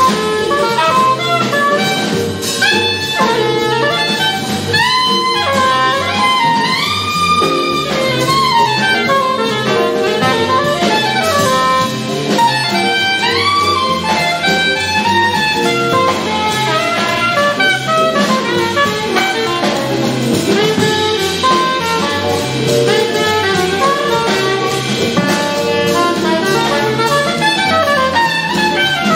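Live small-combo jazz: a soprano saxophone solos in fast runs of notes over keyboard, upright bass and drum kit.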